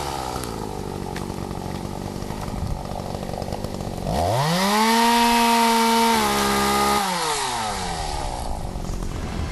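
Two-stroke chainsaw idling, then revved to full throttle about four seconds in, held there for about three seconds, and let fall back to idle.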